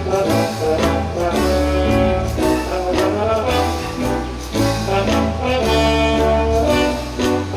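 Instrumental music for a song, with melody lines over a steady bass line.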